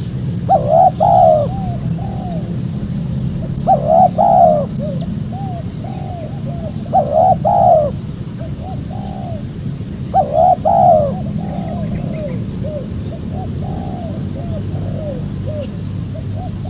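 Spotted dove cooing: four loud phrases about three seconds apart, each followed by a run of softer, shorter coos, the last run trailing on longer. A steady low hum runs underneath.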